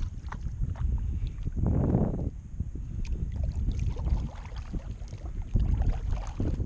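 Kayak paddle strokes swishing and splashing in the water, the loudest about two seconds in, over a steady low rumble of wind on the microphone.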